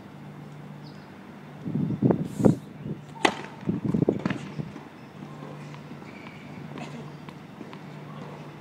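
A tennis serve: one sharp pop of racket strings hitting the ball a little over three seconds in, among bursts of low rumble, over a low steady hum.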